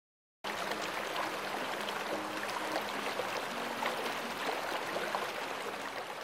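Shallow stream flowing over rocks, a steady rush of running water that starts abruptly about half a second in.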